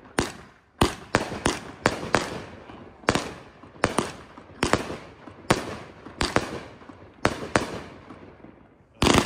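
Consumer fireworks cake firing a rapid series of aerial bursts: sharp bangs, each trailing off in an echo, about one or two a second with a short pause near the start. A louder, longer burst comes near the end.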